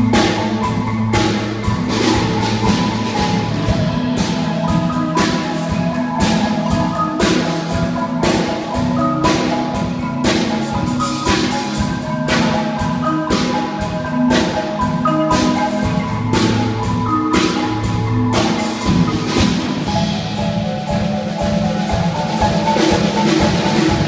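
Front ensemble of marimbas and other mallet keyboard percussion playing a legato exercise: a steady, even stream of mallet notes over held low notes.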